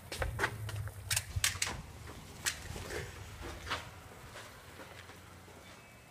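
Irregular sharp clicks and snaps, about eight in the first four seconds and then hardly any.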